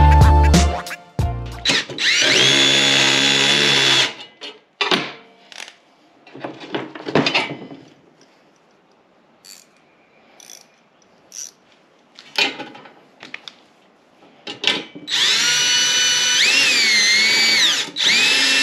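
Power drill/driver running in three steady whining runs: a short one early, then two longer ones near the end, the pitch dipping and rising as the trigger is worked. Scattered knocks and clinks of hardware and tools in between.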